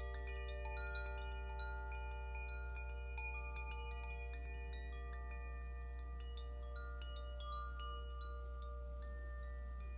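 Zaphir Sufi chime, a hand-held cylindrical chime, swung so that its clapper strikes the tuned rods inside. Many quick tinkling strikes leave overlapping ringing notes, and the strikes thin out over the seconds until a few last notes ring on. A steady low hum sounds underneath.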